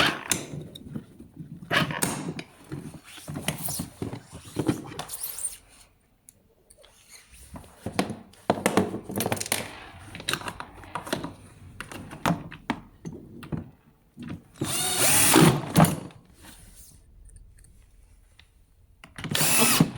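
Power drill running in two short bursts, about 15 seconds in and again near the end, between scattered clicks and knocks.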